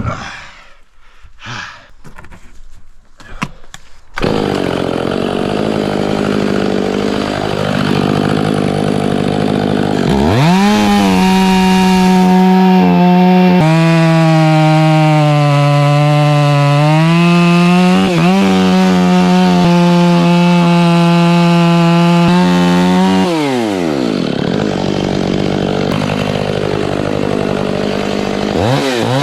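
Stihl MS 500i fuel-injected two-stroke chainsaw. It starts running about four seconds in, after a few knocks, and idles. It then revs to full throttle and cuts into a wooden stump, its pitch sagging under load and recovering. It drops back to idle and revs up again near the end.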